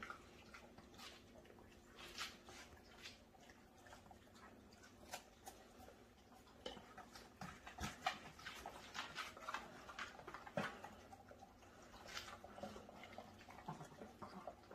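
Dogs eating from stainless steel bowls: faint, irregular crunching and clinks, with a couple of sharper clicks about eight and ten and a half seconds in.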